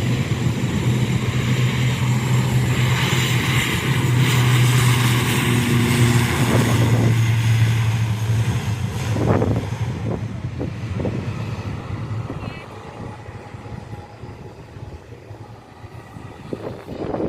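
Airliner passing close by, a steady low engine drone with a rushing hiss. It is loudest in the first half and fades away after about nine seconds.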